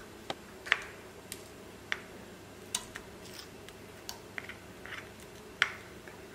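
Scattered light clicks and taps, roughly one every half second and irregular, as a plastic spatula scrapes ground shallot-and-garlic paste off a ceramic plate into an oiled nonstick pan, over a faint steady background noise.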